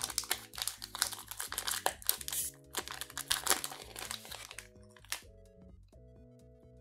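Foil wrapper of a Pokémon card booster pack crinkling and tearing as it is opened, a quick run of rustles that stops about four and a half seconds in, with one more brief rustle a moment later.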